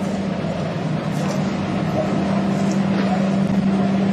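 A vehicle engine idling: a steady, unchanging drone with a strong low hum.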